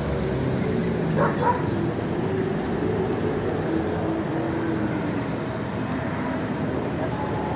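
Busy city street ambience: steady traffic on the avenue alongside the voices of passers-by on a crowded sidewalk. Two short sharp calls stand out about a second in.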